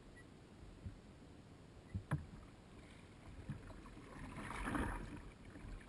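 Water swishing and splashing at a kayak as it is paddled, swelling to its loudest about four to five seconds in. A few sharp knocks, the paddle or gear against the hull, come about one and two seconds in.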